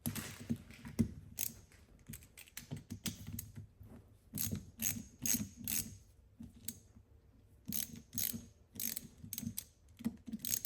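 Ratchet wrench clicking in short, uneven runs as it backs out fasteners on a Zenith 63 updraft carburetor being taken apart.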